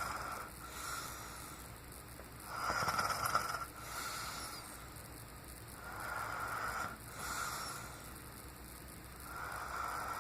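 A sleeping man snoring: raspy, hissing breaths that come and go about every three and a half seconds, the loudest about three seconds in.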